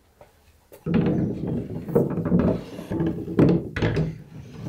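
Wooden sash window being worked in its newly fitted frame. About a second in comes wood sliding and scraping against wood, with several sharp knocks.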